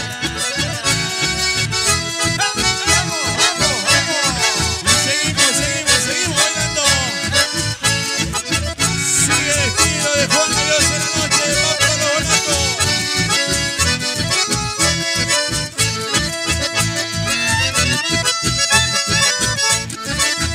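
Live band playing an instrumental passage led by diatonic button accordions and a bandoneón, with acoustic guitar and electric bass keeping a steady beat.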